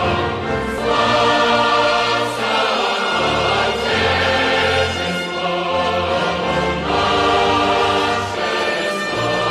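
Choir singing a slow, solemn piece with orchestral accompaniment, played over loudspeakers: a national anthem for the flag raising.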